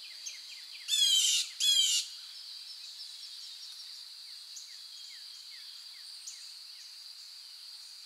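Tropical dawn chorus of wildlife: a steady high-pitched drone with small, repeated falling chirps. About a second in, a loud, harsh bird call sounds twice in quick succession.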